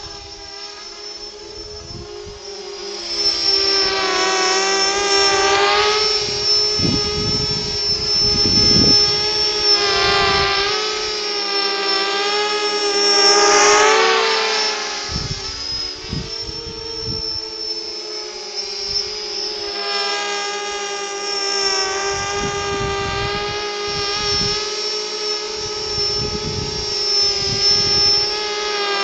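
Mini 250 quadcopter's four Sunnysky 2212 1400kv brushless motors spinning props cut down to 5×4.5 inches: a buzzing multi-tone whine whose pitch wavers up and down with throttle. It grows louder over the first three seconds, with a low rush of air now and then.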